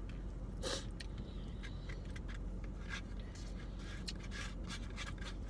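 Plastic utensil scraping and clicking against the inside of an almost empty fast-food side cup of rice, over a steady low hum. A short breathy rustle about a second in.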